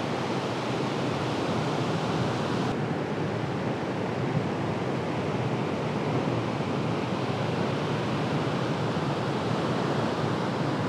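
Steady wash of breaking ocean surf, an even noise with no distinct events. The higher hiss drops away abruptly about three seconds in.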